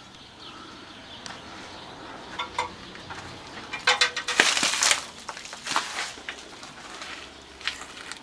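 Crinkling, rustling and scattered light clicks of junk and plastic packaging being disturbed, with a dense burst of crackling about four to five seconds in.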